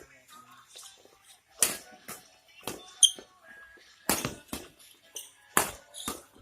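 Badminton rackets striking a shuttlecock in a rally, a string of sharp hits roughly every half second to second.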